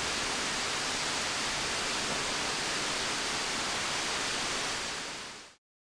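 Steady rain, an even hiss with no distinct drops, fading out about five seconds in.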